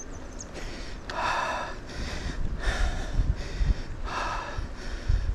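A cyclist breathing hard from the effort of a steep climb: three loud breaths about a second and a half apart, with low rumbling underneath.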